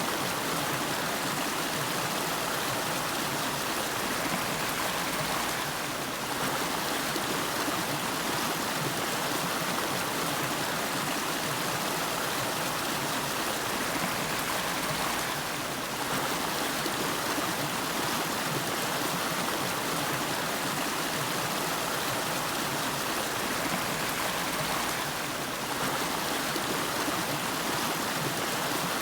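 River water flowing and rushing steadily in an even hiss, dipping slightly in level for a moment about every ten seconds.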